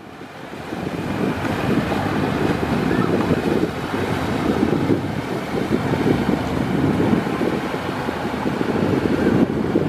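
A water-powered jetpack in flight: the engine of the craft pumping it runs hard while the water jets rush and spray down onto the sea, with wind buffeting the microphone. The sound grows louder over the first second and then holds steady.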